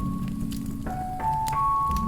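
Gentle background music: a slow melody of clear single notes over a low held drone, with scattered crackles from a wood fire.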